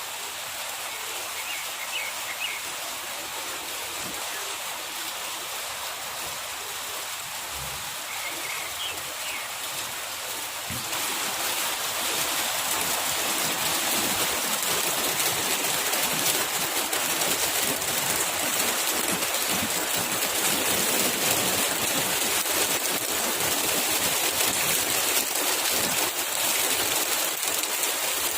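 Flowing river water, a steady rushing hiss that becomes louder about eleven seconds in. A few short bird chirps sound in the first ten seconds.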